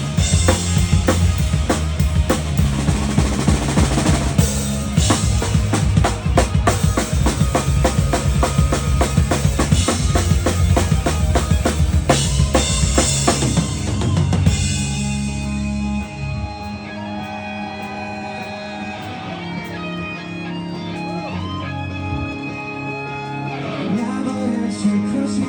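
Live rock band playing an instrumental passage: a drum kit pounding kick and snare under guitars and bass. About two-thirds of the way through the drums drop out, leaving guitar playing on its own, a little quieter, with bending notes, before the low end comes back near the end.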